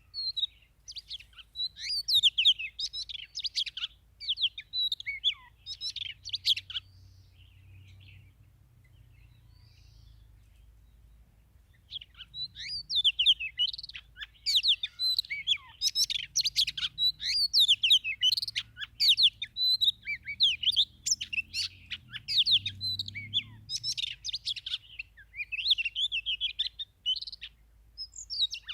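Oriental magpie-robin singing: a rapid run of varied whistles and chirps. It breaks off after about seven seconds and starts again some five seconds later.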